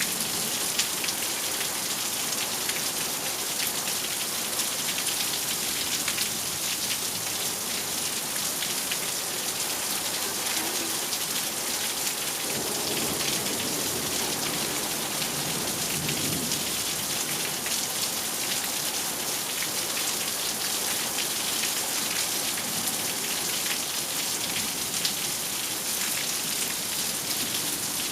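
Steady heavy rain falling, with a dense patter of drops. About halfway through, a low roll of distant thunder rumbles for a few seconds and fades.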